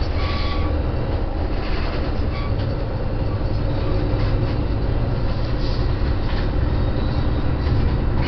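Steady low rumble of a commuter train in motion, heard from inside the passenger car, with a few faint clicks through it.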